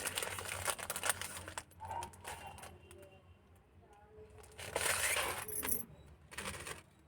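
A plastic jewellery packet being opened by hand: crinkling and rustling with light metallic clicks and clinks from the one-gram gold-plated jewellery inside. It is busiest in the first two seconds, and another burst of rustling comes about five seconds in.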